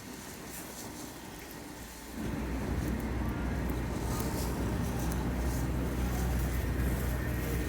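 A motor vehicle's engine rumbles steadily close by, coming in suddenly about two seconds in over a quieter street hiss.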